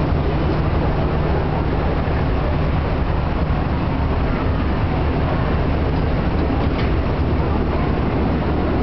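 Steady low mechanical hum and rumble of water-ride tower lift machinery, running evenly throughout, with a faint click about seven seconds in.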